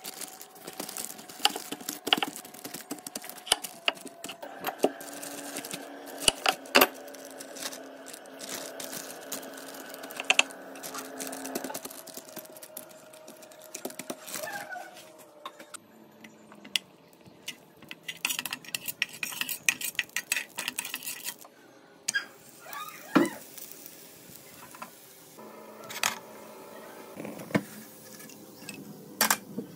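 Kitchen handling sounds while making roti: plastic sheeting crinkling and rustling around the dough, with many sharp clicks and clinks of utensils and the pan. A steady tone runs for several seconds in the first half.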